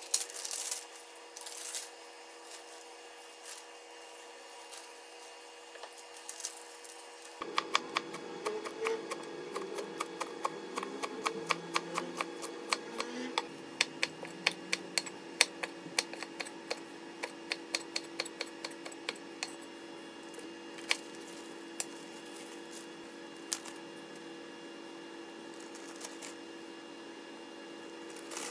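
Chef's knife chopping green onions on a bamboo cutting board: a long run of quick, even chops, about four a second, starting about seven seconds in and stopping about twelve seconds later, then a few single taps. Before the chopping, a plastic bag rustles briefly.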